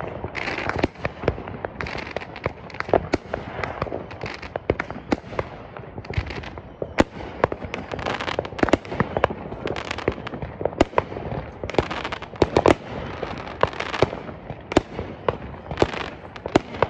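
Aerial fireworks going off all around: an unbroken, irregular string of sharp bangs and crackles, several a second, with no pause.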